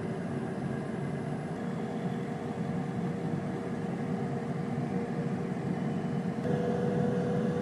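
Air fryer running with a steady fan hum and a faint held tone. The hum changes slightly about six and a half seconds in.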